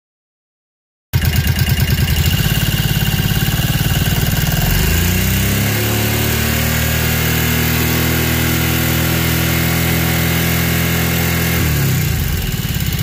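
Kawasaki Brute Force 750's V-twin engine running, heard up close. About a second in it cuts in at idle, rises to a higher steady speed around five seconds in, and drops back to idle near the end.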